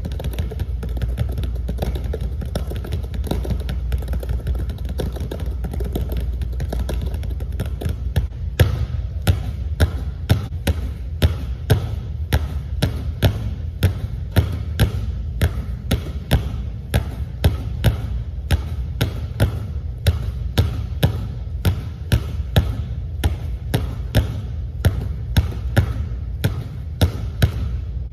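Two basketballs being dribbled on a hardwood gym floor: quick, soft low taps for the first several seconds, then from about eight seconds in, louder regular bounces about two a second. A steady low hum runs underneath.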